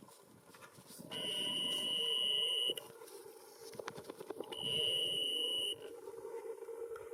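Black woodpecker chiselling at a dead birch trunk: scattered sharp taps. Twice a loud, steady, high whine cuts in and stops abruptly, the first for about a second and a half, the second for about a second.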